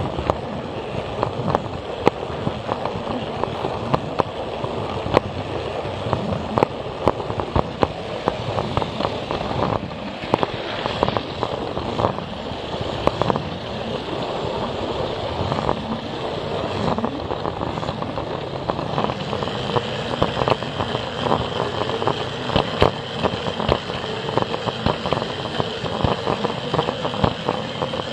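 Plarail toy train running over plastic track, a steady rattle with irregular sharp clicks as its wheels pass the rail joints. About two-thirds of the way through a steady high whine joins in.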